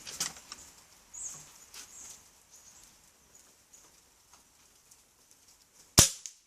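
Faint handling rustles and small clicks, then a single sharp shot about six seconds in from a spring-powered bolt-action airsoft sniper rifle.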